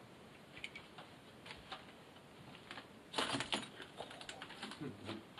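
Footsteps and handling noise of people moving through a room: scattered small clicks and taps, with a louder brushing scrape about three seconds in.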